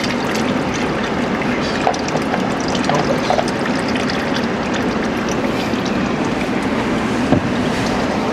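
Used engine oil pouring and trickling steadily out of the oil filter mount after the filter has been removed, with a few light knocks.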